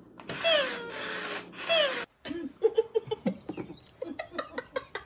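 A cat meowing twice, each meow a long call that falls in pitch. After a sudden break there is a rapid string of short clicks and knocks.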